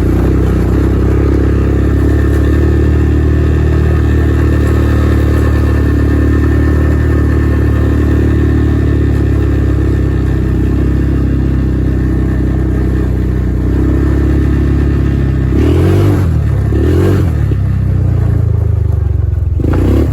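1990 Honda TRX200 FourTrax ATV's single-cylinder four-stroke engine running at steady low speed as the quad is ridden slowly. Its note shifts briefly twice in the last few seconds.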